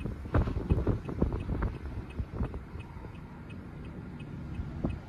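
Wind buffeting the microphone: a low rumble with irregular gusty thumps in the first couple of seconds, settling to a steadier rumble after that.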